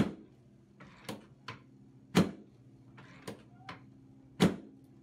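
A series of sharp knocks from a chiropractic back adjustment on a treatment table, about seven in all, the three loudest evenly spaced about two seconds apart, over a faint steady hum.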